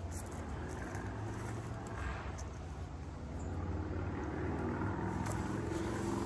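Low steady rumble of road traffic, swelling somewhat in the second half.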